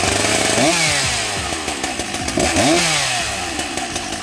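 Two-stroke chainsaw engine running just after being started, revved up and back down twice over a steady idle.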